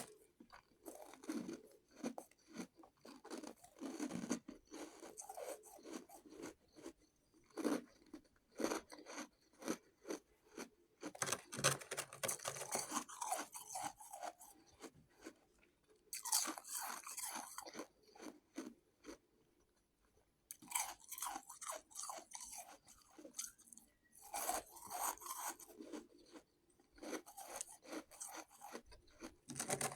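Close-miked chewing and crunching of shaved ice, in bursts of rapid crackling bites with short pauses between them and one longer pause a little past the middle.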